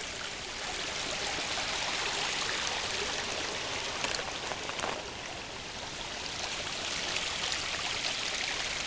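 Small brook running full after heavy rain: a steady rush and trickle of flowing water.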